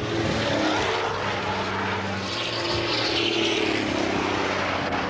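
A steady engine drone with a rushing noise that swells and fades around the middle, as of a vehicle passing at speed.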